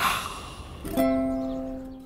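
Closing advertising jingle on a plucked string instrument. A short swish opens it, then a final plucked chord about a second in rings out and fades.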